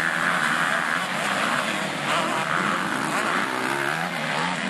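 Several motocross bikes racing together, their engines revving up and down in overlapping pitches.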